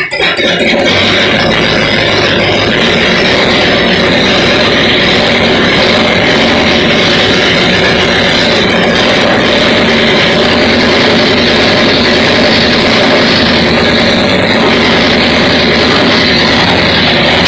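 Carbureted V8 engine of a classic Shelby GT500 Mustang running loudly at a steady speed, heard close up in the open engine bay with a hand on the throttle linkage.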